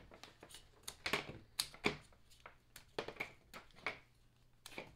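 A HyperDrive USB-C hub being pulled off the side of a MacBook Pro and its cables handled: a string of irregular plastic clicks and taps, the sharpest about one to two seconds in.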